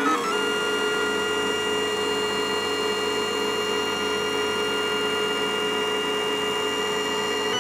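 Lulzbot Mini 3D printer's stepper motors whining at a steady, held pitch during a constant-speed move. The pitch steps just after the start and changes again right at the end as the move changes.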